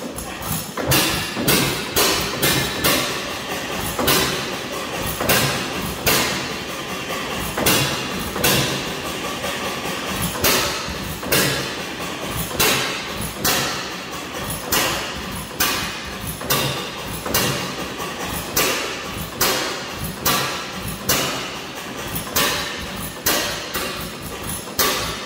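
Antique hit-and-miss engine running on its own, its exhaust popping with a sharp beat one to two times a second. Now and then there is a longer gap where it coasts without firing.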